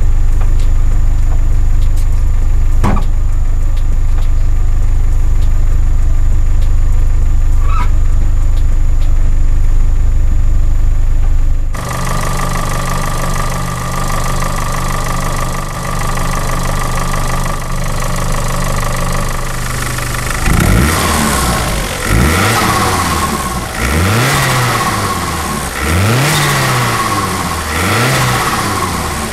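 Opel Corsa OPC's 1.6-litre turbocharged four-cylinder engine idling, then, after an abrupt change about twelve seconds in, blipped repeatedly, about every two seconds. On lift-off the turbo flutters (compressor surge, a stuttering "stututututu") because the dump valve is not opening: a vacuum line to it had come off.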